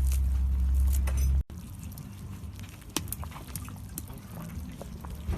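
A loud low rumble, then a sudden cut about a second and a half in. After it, liquid bubbling and splashing in a kazan over a campfire, with scattered sharp pops and crackles.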